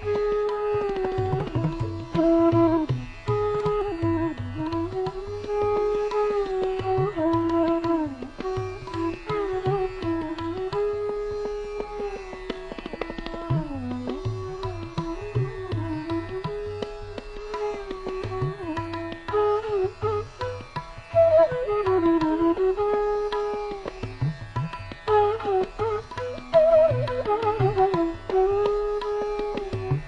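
Instrumental Indian classical-style background music: a melody that slides between notes over a steady hand-drum rhythm.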